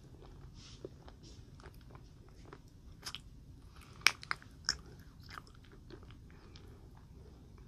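Close-miked chewing of a small green jelly candy: scattered soft, wet mouth clicks, with a few sharper, louder clicks about three to five seconds in.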